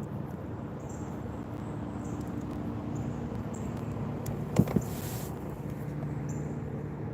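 Steady low hum of a small motor, broken by two quick knocks a little past the middle.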